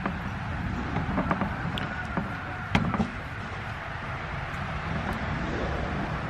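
Steady outdoor background rumble with a few light clicks and taps, the sharpest about three seconds in, as roof-rack parts are pushed into place and handled.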